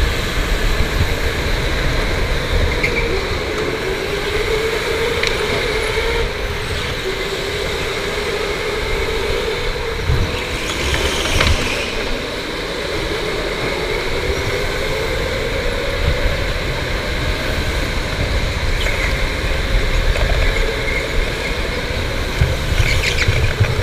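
Electric go-kart's motor whining, its pitch rising and falling as the kart speeds up and slows through the corners, over a steady low rumble of the kart on the track. A single sharp knock about eleven and a half seconds in.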